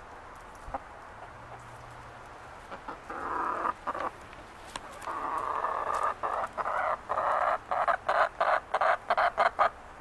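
Chicken calling: a short call about three seconds in, a longer drawn-out call a couple of seconds later, then a quick run of short clucks, about four a second, near the end.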